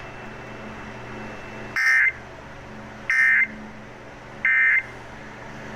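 Emergency Alert System end-of-message signal: three short bursts of the SAME digital data tones, a rapid two-tone warble, about a second and a half apart over a low steady hum. It marks the end of the alert broadcast.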